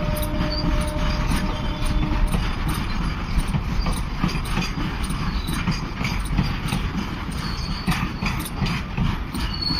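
Container wagons of a goods train rolling past close by: a steady low rumble with an irregular clatter of wheels over the rail joints, and a faint steady squeal in the first two seconds.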